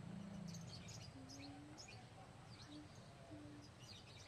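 Faint outdoor quiet with scattered high chirps of small birds.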